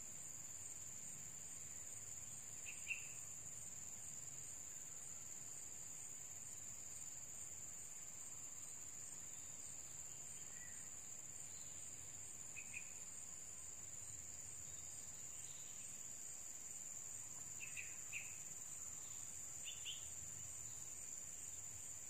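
Steady high-pitched insect trilling, like crickets, with a few brief high chirps scattered through it. The first chirp, about three seconds in, is the loudest.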